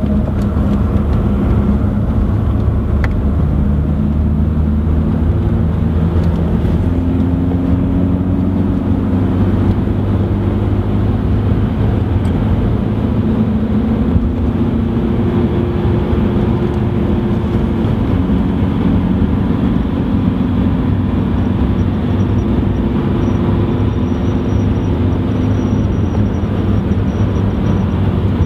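BMW 118d's four-cylinder turbodiesel engine heard from inside the cabin while the car is driven at pace, over steady road and tyre noise. Its note climbs and falls back several times as it pulls through the revs.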